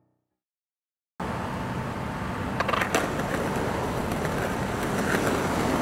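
Skateboard rolling on concrete paving slabs: the steady rumble of its wheels, with a few sharp clicks as they cross the joints between the slabs. It starts abruptly about a second in, after silence.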